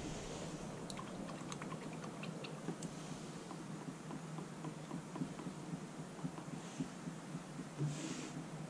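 Faint small clicks and dabs of a paintbrush mixing oil paint in a palette box, mostly in the first few seconds, with a short hiss near the end.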